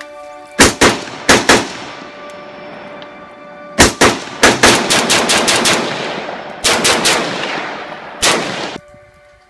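.223 FN FAL-pattern rifle firing Wolf steel-cased ammunition in several quick strings of shots, each shot with a long echo tail: a couple of pairs, then a fast run, a shorter run, and one last shot near the end. The rifle is cycling and ejecting its cases on a gas setting adjusted for the low-powered Wolf ammo.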